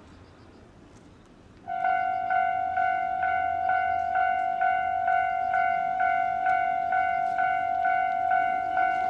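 Japanese railroad crossing warning bell starting up about two seconds in, a "kan-kan" clang repeating a little over twice a second over a steady ringing tone. It signals that a train is approaching and the crossing is closing.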